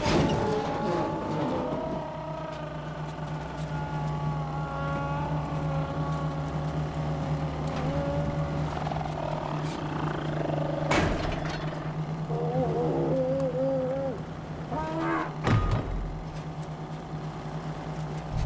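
Vehicle engine running steadily, with pitched warbling sounds above it and two sharp knocks partway through.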